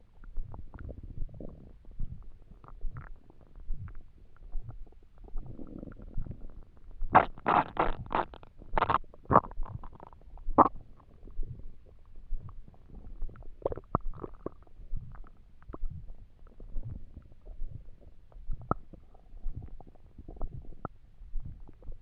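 Empty human stomach rumbling and gurgling from hunger. Low rumbling runs throughout, with a burst of louder, higher gurgles about a third of the way in.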